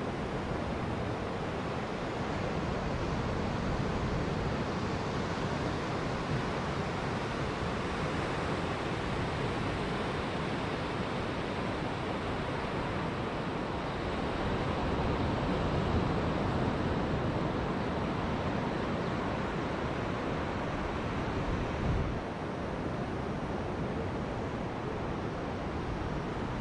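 Sea waves breaking and washing onto a sandy shore: a steady rushing noise, with wind buffeting the microphone.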